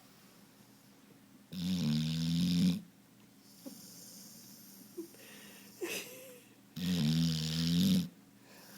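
Dog snoring in deep sleep: two loud, rattling snores on the in-breath about five seconds apart, with a softer breath between them.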